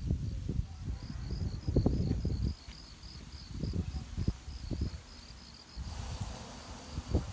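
Crickets chirping in a quick, even pulse, about four or five chirps a second. Under them are low thumps and rumbles close to the microphone, loudest in the first couple of seconds.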